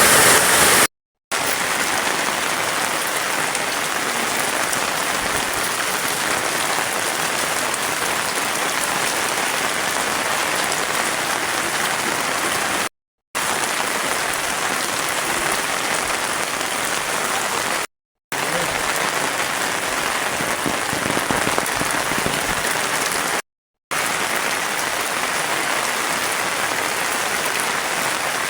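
Rain falling steadily, an even dense hiss, cut off by four brief gaps of silence.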